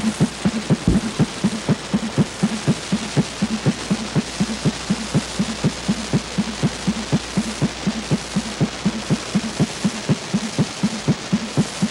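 Dance accompaniment made of a steady low drum pulse, about four beats a second, over a constant hiss.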